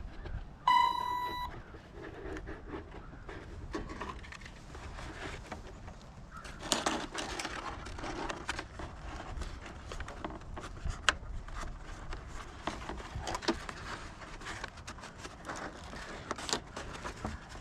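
A single short electronic beep about a second in, then wind rumbling on the microphone with scattered clicks and rustles of handling.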